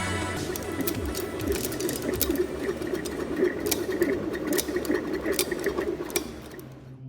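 Machine running with a rapid mechanical clatter of fast ticks, fading out near the end.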